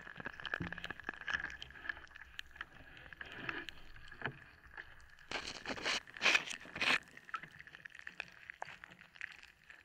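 Hands squashing a Twinkie sponge cake under water in a tank: crackling, small clicks and water swishing, with three louder swishes between about five and seven seconds in, over a faint steady high tone.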